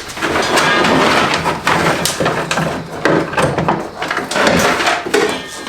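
A section of car wiring harness being pulled out and dragged free: steady rustling and scraping, broken by many small clicks and knocks.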